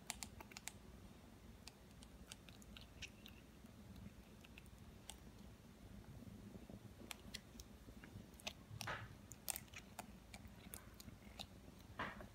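Near silence with faint, irregular soft clicks and crunchy rustles as a Ragdoll kitten's paw fur is handled for trimming, a couple of slightly louder crackles near the end.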